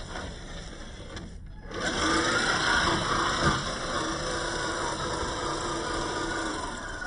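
Traxxas TRX-4 RC crawler's electric motor and geared drivetrain whining as it crawls. It gets clearly louder a little under two seconds in as more throttle is applied, and the whine wavers in pitch with the throttle.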